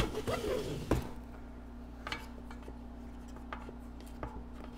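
Plastic tire levers working a fat bike tire's bead off the rim. There is a sharp click and a squeaky rubber-on-rim rubbing in the first second, then a few scattered light clicks.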